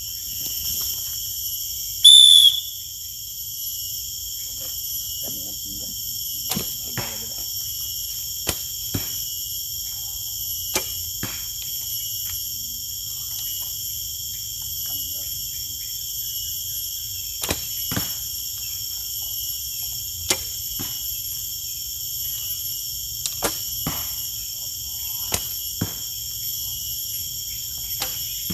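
Steady, high insect chorus of crickets or cicadas. About two seconds in comes one short, loud, high whistle-like note that falls in pitch. Light clicks and knocks are scattered through the rest.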